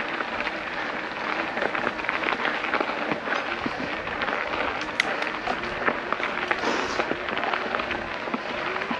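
Specialized Turbo Levo electric mountain bike climbing a steep rough 4WD track: tyres crunching over the surface with frequent sharp clicks and rattles from the bike, over a steady noisy rush.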